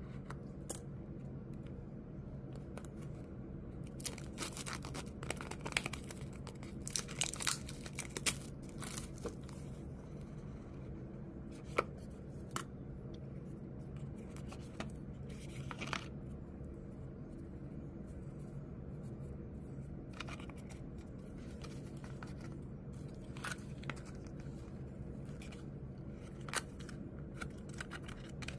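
Scissors cutting and tearing the seal of a cardboard smartwatch box: a dense run of snips, tearing and crinkling a few seconds in, then scattered clicks, taps and scrapes of cardboard as the box is opened and its inner trays handled. A steady low hum sits underneath.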